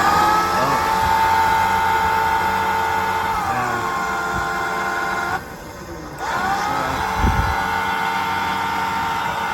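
A service-body crane's motor running with a steady whine. It drops in pitch about a third of the way in, stops briefly a little past halfway, then starts again and climbs back up to speed.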